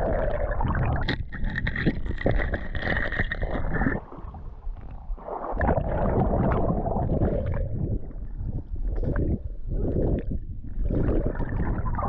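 Water splashing and sloshing close to the microphone as a swimmer moves through the water, with a quieter stretch about four seconds in.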